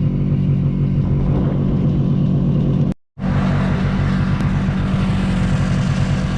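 A vehicle engine running steadily under way through deep snow. The sound cuts out for an instant about three seconds in, then the engine carries on as before.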